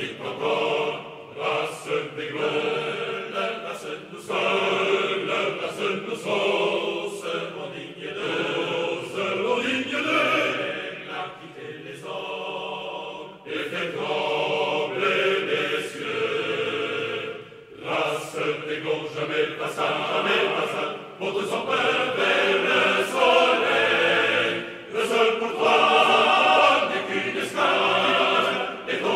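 Choral music: a choir singing.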